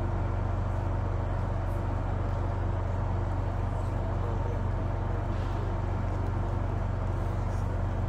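Train passing close by: a steady, heavy low rumble with no breaks.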